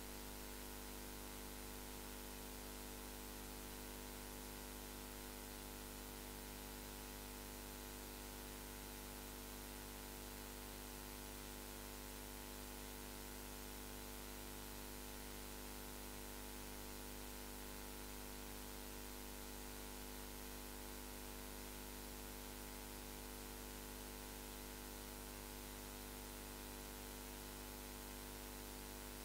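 Steady electrical hum of several fixed tones over an even hiss, with no speech coming through: noise of the recording chain.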